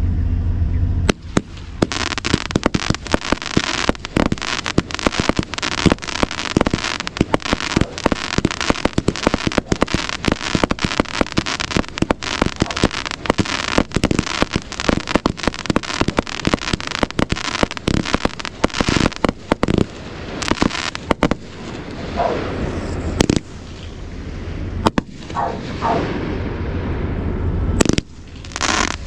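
Fireworks display: a dense, continuous barrage of bangs and crackles that thins out over the last several seconds, with a few whistles among them.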